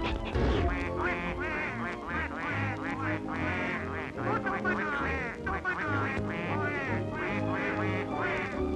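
Cartoon duck quacking: a quick run of short, high quacks, several a second, over a bouncy orchestral score with a steady bass beat.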